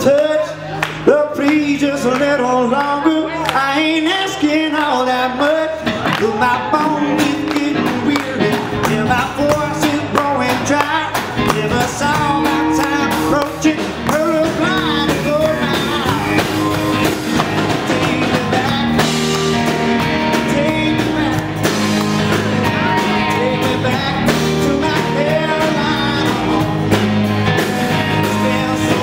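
Live rock band playing: electric guitars over electric bass and a drum kit.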